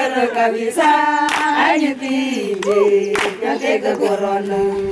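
A group of voices singing together without instruments, with a few hand claps; in the second half they hold one long note.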